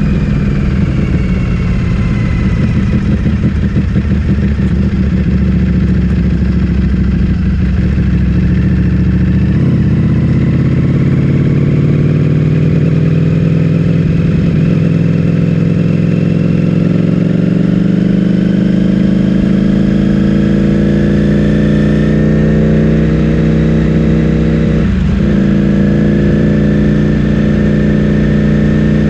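Ducati Streetfighter V4S's 1103 cc V4 engine running through an Akrapovic full-system exhaust while riding. The engine note falls for the first several seconds as the bike slows, then climbs gradually under acceleration, with a brief dip near the end before it rises again.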